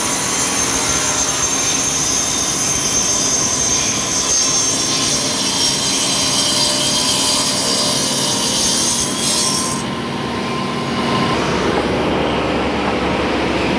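Bandsaw cutting through a slab of sonokeling (Indian rosewood), a loud, steady, high-pitched sawing noise over the machine's running rumble. The cut ends abruptly about ten seconds in, leaving only a lower steady machine rumble.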